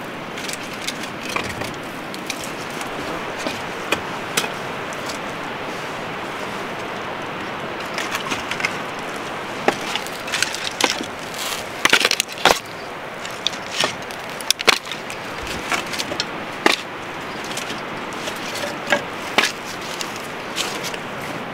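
Split firewood logs knocking and clattering against each other as they are pulled from a woodpile and stacked on an arm, in irregular sharp knocks, busiest about halfway through, over a steady rushing background noise.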